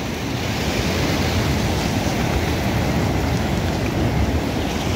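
Steady rushing noise of sea surf and wind, with a low rumble of wind on the microphone.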